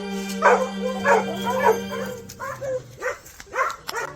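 Dogs barking and yelping repeatedly, short sharp calls about twice a second, with a steady low hum underneath.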